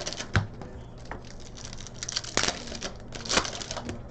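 Trading cards being handled at a table: rustling and flicking of cards and foil pack wrappers, with a few sharp clicks and taps spread through.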